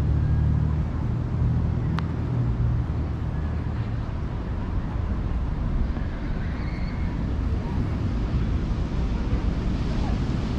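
Ocean surf rumbling steadily, with wind buffeting the microphone and a single sharp click about two seconds in.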